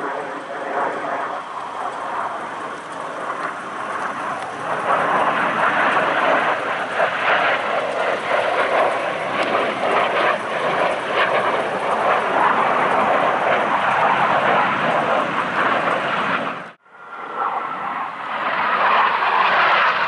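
Jet noise from a U.S. Navy Blue Angels F/A-18 Super Hornet's twin turbofans flying past, swelling about five seconds in and staying loud. It breaks off sharply for a moment near the end, then comes back.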